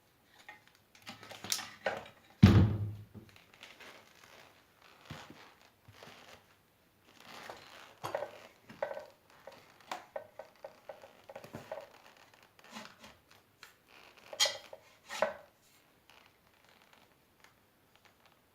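Metal parts being handled on a workbench: irregular clinks, knocks and scraping, with one heavy thud about two and a half seconds in.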